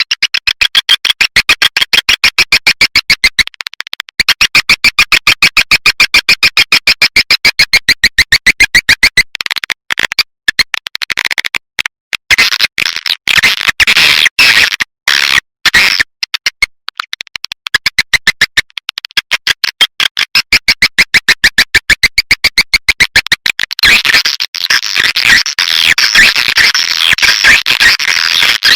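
Swiftlet caller recording: a loud, rapid run of high twittering chirps, many a second, in phrases a few seconds long broken by short gaps. It is a lure sound played to draw swiftlets into a nesting house.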